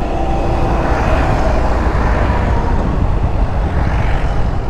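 Motor scooter under way: steady engine and road noise with heavy low wind rumble on the microphone.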